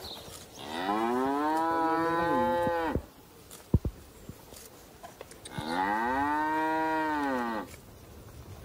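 Calf mooing twice. Each call is long, about two seconds, rising then falling in pitch. A short sharp click comes between the two calls.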